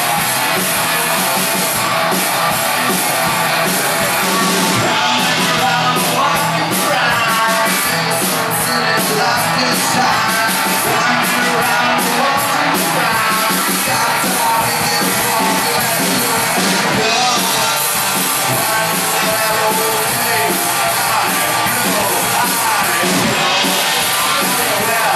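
Rock band playing live and loud: electric guitar and drums, with frequent cymbal crashes through the middle of the stretch.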